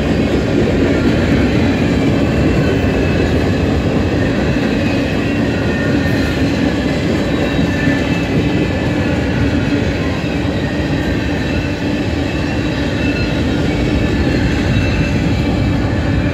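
Freight train of covered hopper cars rolling past: a steady rumble of steel wheels on the rails, with faint thin high tones above it.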